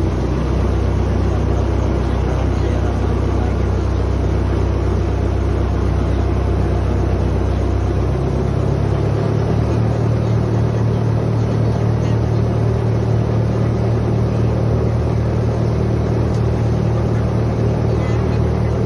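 River ferry's engine running steadily, heard from on deck. Its note steps up about nine seconds in.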